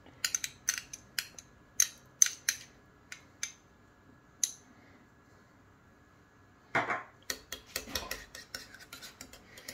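Metal teaspoon clinking and scraping against a small glass dish as thick mustard is scraped out, a string of sharp clicks over the first four and a half seconds. After a pause of about two seconds, quicker clinks and scrapes of the spoon against a ceramic bowl as the mustard is stirred into liquid.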